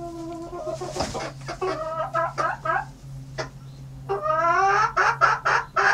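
Bantam Cochin hen scolding: a run of drawn-out, complaining clucks and squawks, with a louder burst of calls over the last two seconds. She is fussing at other hens inspecting her nest box.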